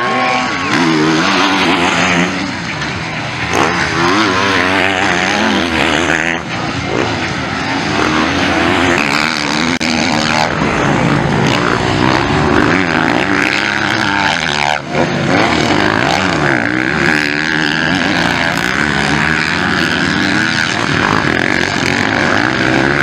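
Motocross bike engines revving up and down again and again as riders race over jumps and ruts. From about halfway on, a steady high-pitched whine runs over them.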